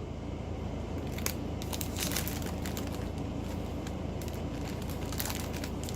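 Crinkling and rustling of small plastic bags of diamond painting drills being handled and sorted, in irregular bursts starting about a second in, over a steady low hum.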